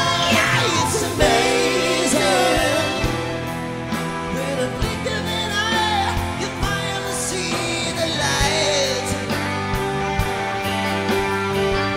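Live rock band playing: drums, bass guitar, keyboards and electric guitar over a regular beat, with a lead melody gliding up and down above the chords.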